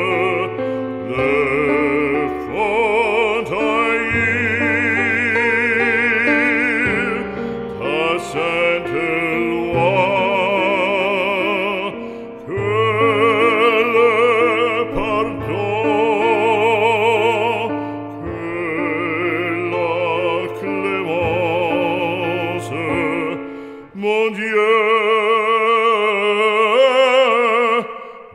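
Slow operatic aria: a singer with a strong vibrato holding long notes over orchestral accompaniment.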